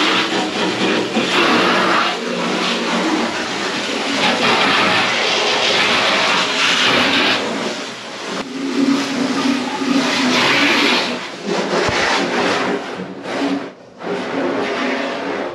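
Garden hose spray hitting the cabin windows and roof of a small boat, heard from inside the cabin, during a water test of the cabin for leaks. The hiss of the water swells and fades as the jet is moved over the cabin, and drops away briefly near the end.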